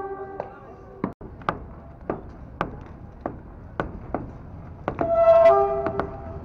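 Sharp knocks at about two a second, like hammer blows breaking up masonry during demolition. A vehicle horn ends just after the start, and another sounds briefly about five seconds in, the loudest moment.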